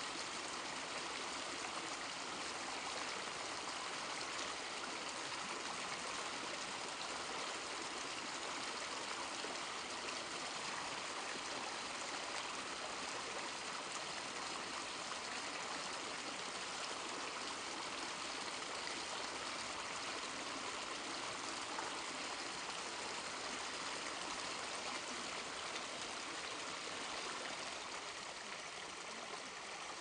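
Waterfall pouring into a pool: a steady, unbroken rush of falling and splashing water, easing slightly near the end.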